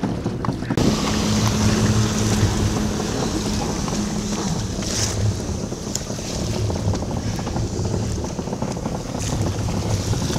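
Jet ski engine running steadily at speed, with wind buffeting the microphone and water spray hissing.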